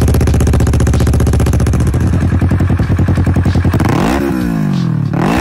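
Kawasaki Versys 650's parallel-twin engine idling through a complete Akrapovic exhaust system, then blipped twice, the revs rising and falling quickly, once about four seconds in and again near the end.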